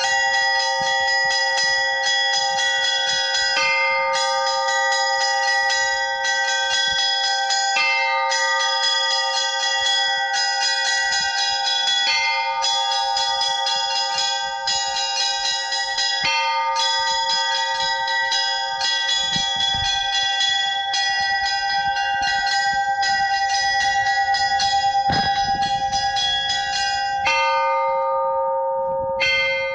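Church bells in the Russian manner: small bells struck in quick repeating patterns over the steady ring of larger bells. The pattern changes every few seconds, and near the end the small bells pause briefly while the larger ones ring on.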